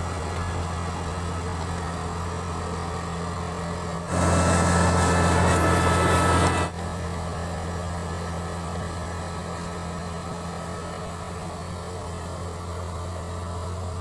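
Kubota Harvesking DC-68G combine harvester's diesel engine running steadily as the tracked machine drives. About four seconds in, it gets louder and hissier for about two and a half seconds, then drops back to the steady running sound.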